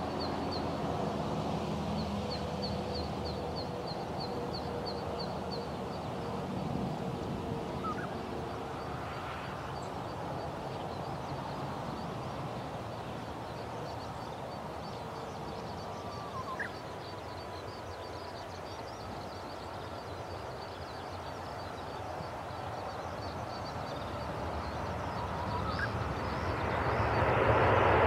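Distant jet airliner engine noise, steady and fairly faint, as an Airbus A330 approaches and lands, with a few short bird chirps over it. In the last few seconds a much louder jet engine noise builds up from an airliner on the runway.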